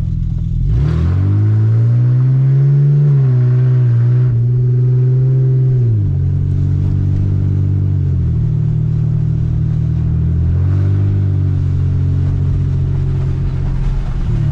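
Lexus GS300's 2JZ inline-six engine pulling the car along, running on freshly replaced rod bearings. The revs climb about a second in, hold, drop back twice partway through and rise again.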